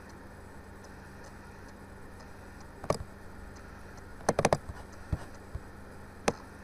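Computer mouse clicks over a steady low electrical hum: one click about three seconds in, a quick run of three or four a second later, then two more single clicks.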